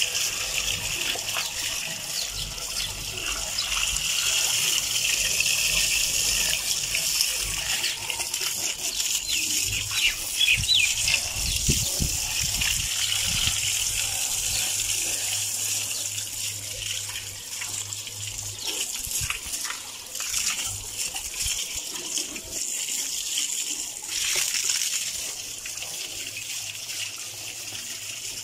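Hose water gushing and splashing over a motorcycle's wheels, chrome fenders and body as it is washed down, the splash rising and falling as the stream moves over the bike.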